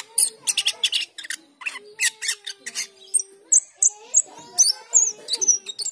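Asian glossy starling singing a fast chattering song of sharp clicks and squeaky notes, with high thin whistles sliding up and down in the second half.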